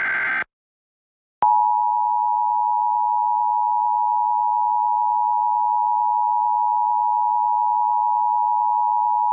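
The end of an Emergency Alert System SAME digital header burst, a rapid warbling data squeal that cuts off about half a second in. After a second of silence comes the EAS two-tone attention signal (853 and 960 Hz sounded together), a steady loud tone held for about eight seconds that stops just before the spoken test message.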